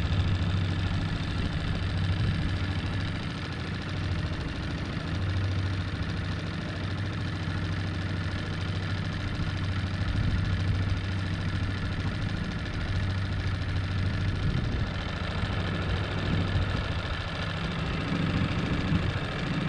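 Boat outboard motor running steadily at low speed, as when trolling for lake trout.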